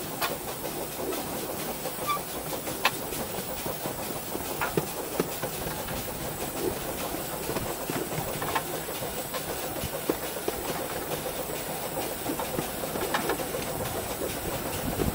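Miniature narrow-gauge steam locomotive running along the track, heard from its cab: a steady hiss of steam and running noise, with a sharp click from the wheels on the rails now and then.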